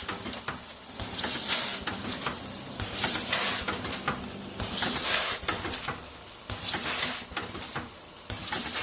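Automatic granule packaging machine running through its cycle: a hissing rush about every two seconds, with small clicks and knocks between.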